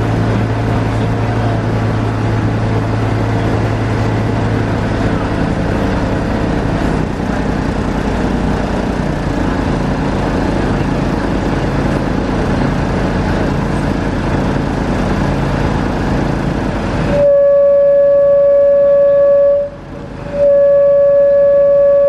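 Boat engine running under a steady wash of noise, then two long blasts of a boat horn, one steady pitch each, lasting a few seconds and separated by a short break, starting about two-thirds of the way in.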